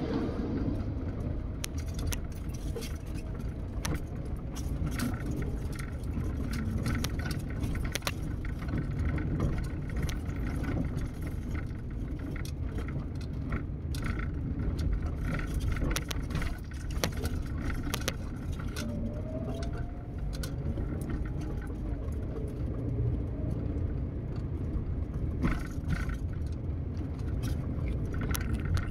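Car driving slowly over a broken, potholed road, heard from inside the cabin: a steady low rumble of tyres and engine, with frequent short clicks and rattles as the car jolts over the rough surface.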